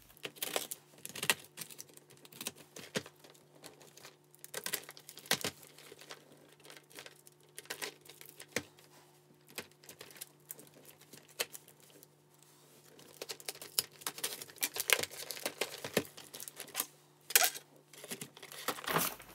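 Cardboard parcel being opened by hand: scissors working at the packing tape, with tape and cardboard crackling, tearing and rustling in irregular clicks, busier toward the end. A faint steady hum runs underneath.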